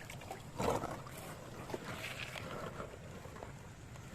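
Shallow river water running and sloshing as toy vehicles are worked through it, with a short louder burst a little under a second in.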